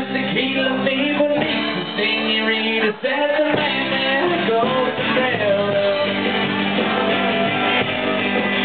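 Live band music: strummed acoustic guitar and upright bass under a sung lead vocal.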